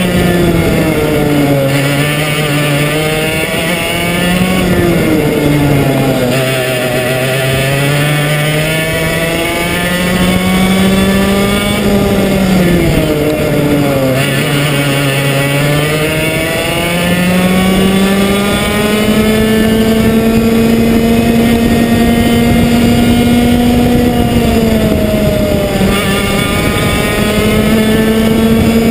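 A Komet two-stroke kart engine running at racing speed, heard onboard: its pitch drops as the kart slows for the corners and climbs back on the exits, with two deep dips in the first half, then holds high and steady along the straight in the second half with one short dip near the end.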